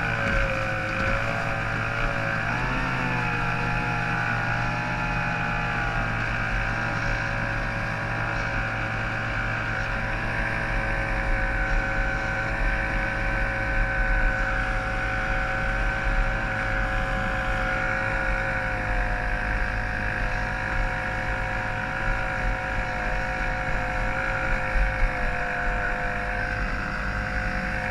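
Yamato 102 two-stroke racing outboard on a small hydroplane running at a steady, even pitch, with a brief dip and recovery in pitch about two to three seconds in.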